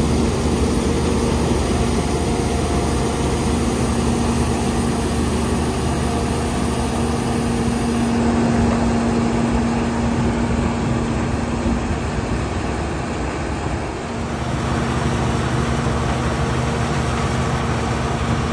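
International Harvester 1460 Axial-Flow combine running steadily under load while harvesting dry corn: a dense drone of diesel engine and threshing machinery with a steady hum. The sound shifts in character about three-quarters of the way through.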